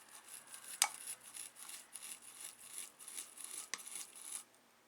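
Hot soldering iron tip being rubbed clean in a tip cleaner: repeated scratchy strokes, about three a second, with two sharper knocks of the iron against the holder, about a second in and near the end.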